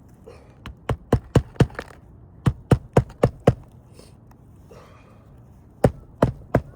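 Hammer driving roofing nails through shingles: three quick runs of four or five sharp strikes each, about four blows a second.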